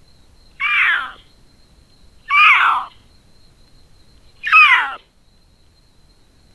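Female Florida panther caterwauling: three loud yowls about two seconds apart, each falling in pitch. This is the mating call a female in heat uses to tell males she is ready to mate. A faint steady high tone runs underneath.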